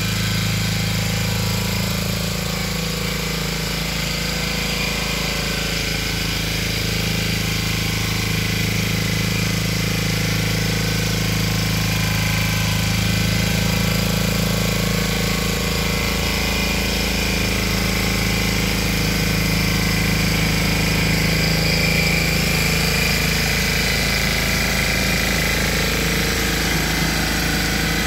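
Valpadana walk-behind rotary tiller with an 8 hp, 359 cc Lombardini engine running steadily while it tills the garden soil, getting slightly louder in the latter part.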